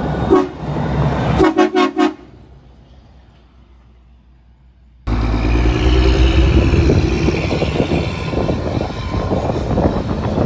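Old truck's engine running as it drives past towing a loaded car trailer, with its horn giving one short toot and then a quick burst of about four toots. After a few quieter seconds, loud engine and road noise come in suddenly as the rig passes again.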